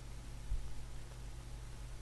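Quiet room tone with a steady low hum and one dull low thump about half a second in.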